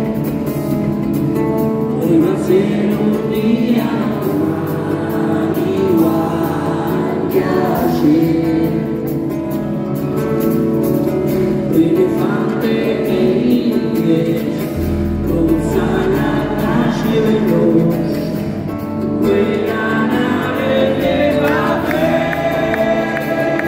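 Rock band playing live with singing over it; a heavy bass part comes in about fifteen seconds in.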